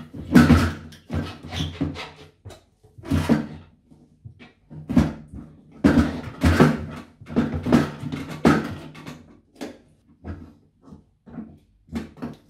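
Irregular knocks and scrapes as a toilet cistern is lifted and pushed back into place on the bowl, about one every second, with short pauses between.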